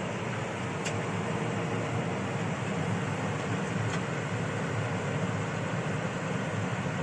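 Combine harvester running steadily at work, a constant mechanical noise heavy in the low end, with two faint ticks.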